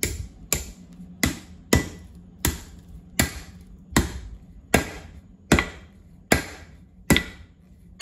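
Hand hammer striking a red-hot steel bar over the anvil's edge, about eleven even blows with a short ring after each, bending the bar to 90 degrees.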